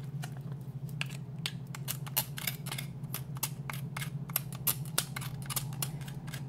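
Knife blade scraping and clicking against a metal garlic press, clearing crushed garlic off it. Sharp irregular clicks come several times a second over a steady low hum.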